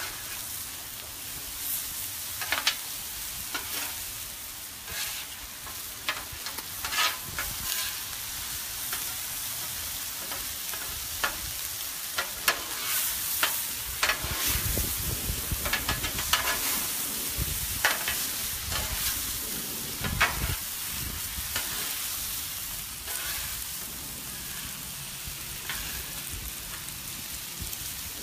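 Chicken pieces and sliced zucchini and squash sizzling on a steel Blackstone flat-top griddle, with metal spatulas repeatedly scraping and clacking across the cooktop as the food is tossed and pushed together.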